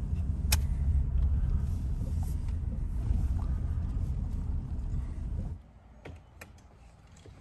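Low, steady rumble of a car rolling slowly, heard from inside the cabin, with one sharp click just after the start. It cuts off suddenly about five and a half seconds in, leaving much quieter outdoor sound with a few faint clicks.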